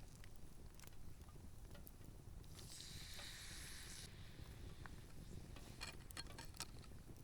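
Potatoes frying in butter in a pan over a campfire, sizzling faintly, with the hiss swelling for about a second and a half around the middle. A few light clicks are scattered through it.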